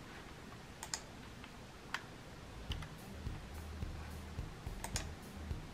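Keys of a Microsoft Wired Keyboard 600, a membrane keyboard, pressed now and then: a few faint clicks, some in quick pairs.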